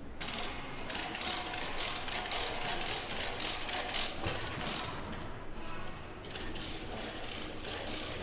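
Hand tools clicking at work during helicopter assembly: a dense, uneven run of quick mechanical clicks, several a second.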